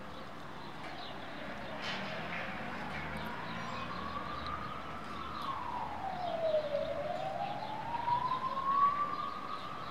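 A siren wailing. Its single tone climbs slowly, drops steeply about halfway through, then climbs again, and it grows louder in the second half.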